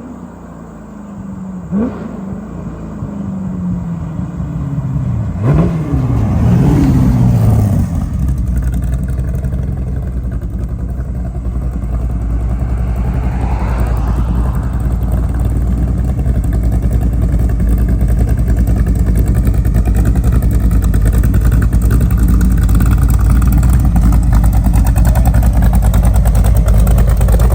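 Roush 427R V8 in a Superformance GT40 MkII replica, driving past with its pitch falling about two seconds in and again more sharply around six seconds. It then settles into a steady, loud, low-pitched running that grows slowly louder.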